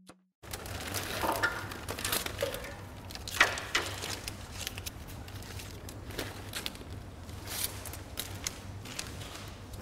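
Bundles of dry willow rods rustling, crackling and clicking against each other as they are handled, over a low steady hum.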